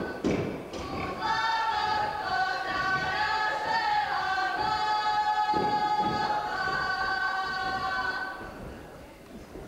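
A group of voices singing a folk song unaccompanied, in long held notes sung together in close harmony. The singing fades out near the end, and a few dull thuds of stepping feet come near the start and again past the middle.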